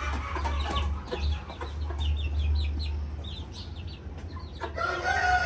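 Backyard chickens clucking, with quick runs of short high notes about two to three seconds in, over a steady low hum.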